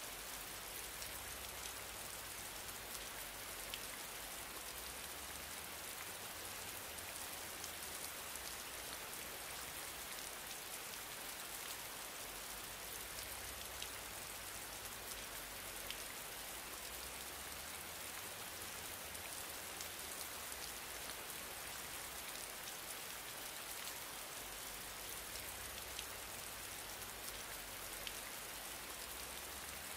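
Steady, even hiss with faint scattered ticks, unchanging throughout.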